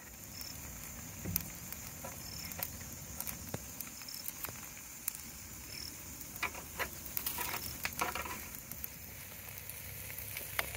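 Chicken pieces sizzling on a wire grill over hot charcoal, with scattered crackles and sharp clicks.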